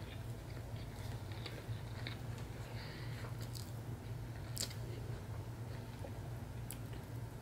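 Close-up chewing and mouth sounds of a person eating a soft catfish sandwich, with scattered small wet clicks, the sharpest about four and a half seconds in, over a steady low hum.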